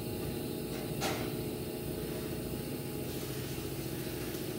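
Steady mechanical hum of a running kitchen appliance fan, with one sharp click about a second in.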